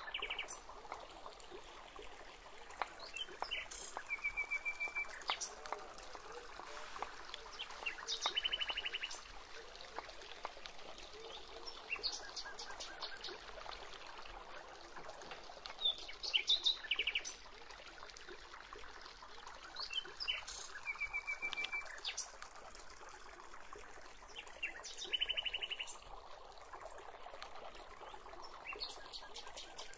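A bird repeating a short, rapid trilled call about every four seconds. Beneath it are light taps of a knife slicing garlic and chilies on a wooden chopping block.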